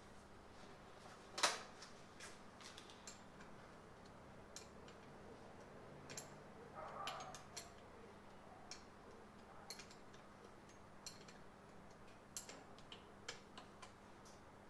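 Faint, scattered clicks and taps of hand tools and metal parts being handled while a fuel pressure regulator is fitted, with one sharper click about a second and a half in and a short scraping cluster around the middle.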